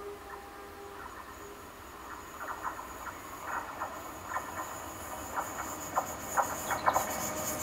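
Train led by a British Rail Class 73 electro-diesel locomotive approaching and growing louder, with irregular clicking from its wheels on the track. The last of a horn note fades out in the first second.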